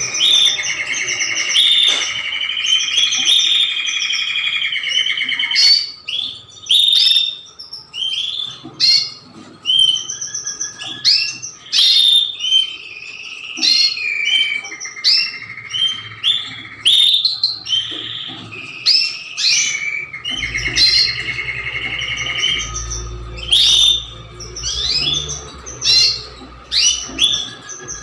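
Domestic canaries singing: long rapid trills held for several seconds near the start and again past the middle, broken up by many short chirps and whistled notes.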